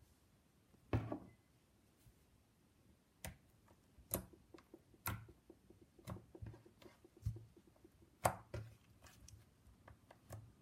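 Slime being squeezed and poked by hand, giving irregular sharp clicks and small pops about once a second, the strongest about a second in and again near the end.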